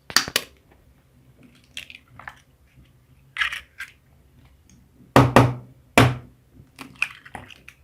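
Eggs tapped and cracked against a bowl: a scattering of sharp taps and clinks of shell on the bowl, the loudest pair a little past halfway.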